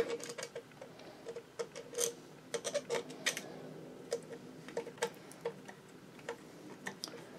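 Screwdriver turning the feed dog rock shaft pivot screw in the cast-iron bed of a Singer 66 sewing machine: a run of light, irregular metal clicks and ticks as the screw is run in.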